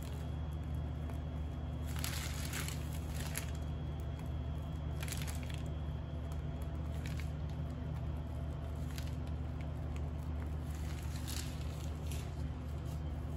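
Soft squishing and scraping strokes, every second or two, of buttercream being spread and smoothed on a cake, over a steady low hum.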